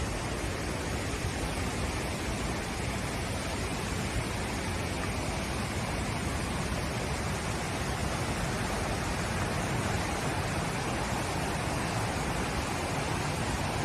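Steady rushing of falling water, an even roar with no breaks.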